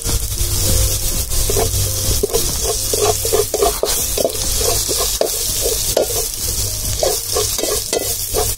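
A metal spoon scraping and stirring garlic, ground cumin and black pepper frying in gingelly (sesame) oil in a metal pan, over a steady sizzle. The scraping strokes come a few times a second, starting about a second in.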